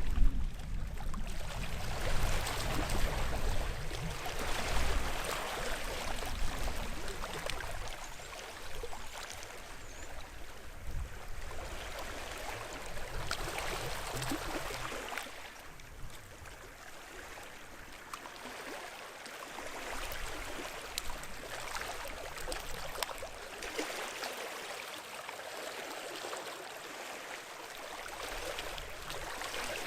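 Small sea waves washing and lapping on the shore, a hiss that swells and ebbs every few seconds. Low wind rumble on the microphone at the start.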